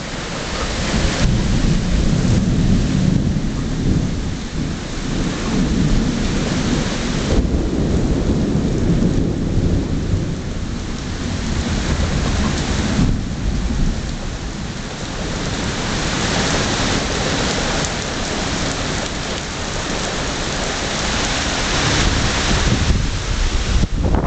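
Heavy thunderstorm downpour: a dense, loud hiss of rain on the street and pavement, with a deep rumble underneath.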